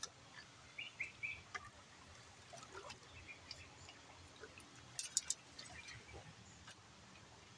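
Quiet stream-side background with a few short bird chirps about a second in. A hand groping in shallow water among dry bamboo stems makes small splashes and clicks, the loudest a quick cluster of three sharp clicks about five seconds in.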